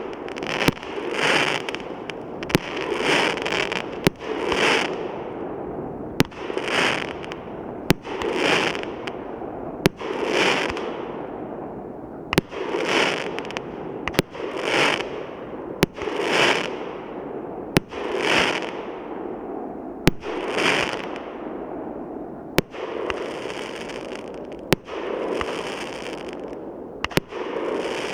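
Multi-shot firework cake firing shot after shot. Each shot gives a sharp bang about every one to two seconds, followed by a swelling hissing crackle that lasts about a second.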